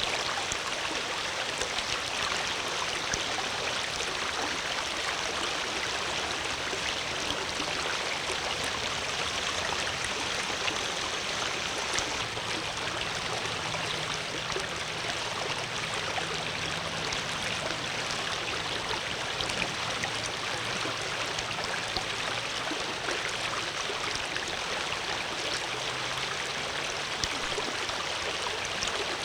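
Water flowing steadily, an even rushing and trickling like a small stream.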